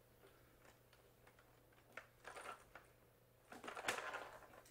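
Faint clicks and knocks of a large RC monster truck being handled, its plastic chassis and tyres set down on a concrete floor. A few knocks come about two seconds in, and a louder cluster comes near the end.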